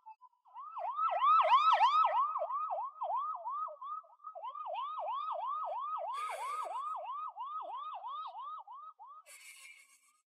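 Emergency vehicle siren in a fast yelp, about four rapid swoops a second, louder at first and fainter after a brief break about four seconds in. Two short bursts of hiss come about six and nine seconds in.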